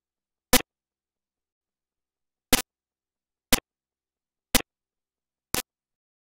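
Short sharp clicks, one about every second with one beat skipped, each a quick double click, against dead silence.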